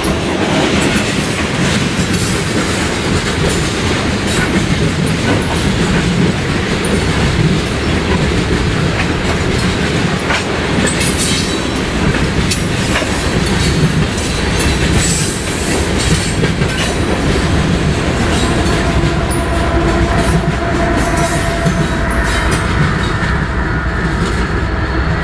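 Loaded coal train's freight cars rolling steadily past, steel wheels clicking over the rail joints over a continuous low rumble.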